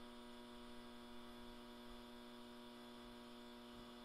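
Near silence with a faint, steady electrical hum of several held tones, which stops near the end.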